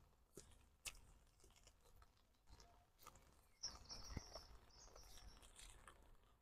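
Near silence: quiet room tone with a few faint soft knocks and clicks, and faint high-pitched chirping for about two seconds in the middle.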